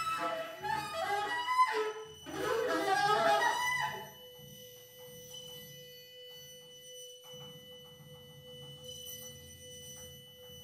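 Live jazz from alto saxophone, vibraphone and drums: a loud, fast-moving alto saxophone phrase for about the first four seconds, then a quieter passage with one long, steady held note over soft, low drumming.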